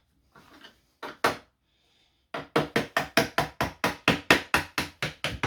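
Rapid knocking: a screwdriver is being hammered along the last seam of a plastic LiFePO4 battery case to split the lid off. Two single knocks come first, then a quick, even run of about four or five blows a second.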